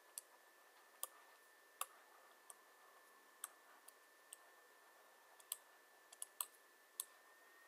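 Faint, irregular clicks of a stylus tapping on a pen tablet as handwriting is written, about a dozen scattered through, over a faint steady high tone.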